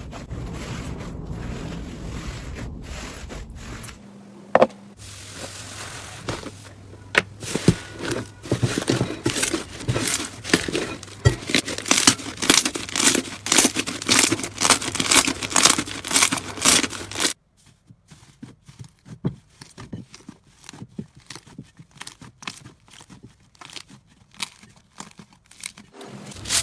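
Slime being squeezed and stretched by hand, in several short clips: a soft start, then from about six seconds a dense run of crackling and popping clicks, which cuts off suddenly and gives way to softer, sparser crackles.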